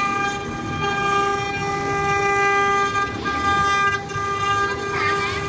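CNC wood router spindle running at speed: a steady high whine with a stack of overtones over a rough cutting rumble. Some shorter gliding squeals join near the end.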